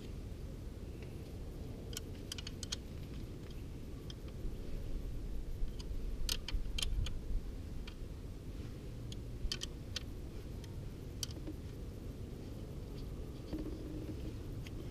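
Scattered light clicks and taps of small hardware and tools being handled, some single and some in quick clusters, over a steady low hum.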